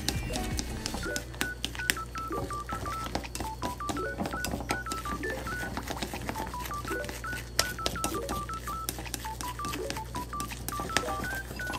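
Light background music with a simple melody of short, beep-like stepping notes, over irregular clicks of wooden chopsticks against a glass bowl while rice and beaten egg are stirred.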